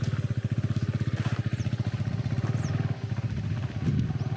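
Motorcycle engine idling steadily, its firing heard as a fast, even pulse.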